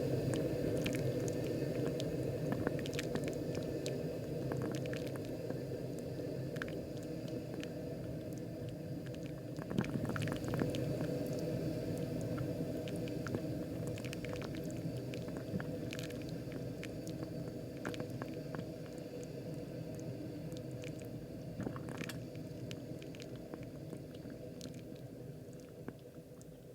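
Moccamaster KBGV Select drip coffee maker brewing: a steady gurgling and bubbling of water being heated and pushed up through the machine, with small wet pops and drips over it. It dies down slowly over the last few seconds.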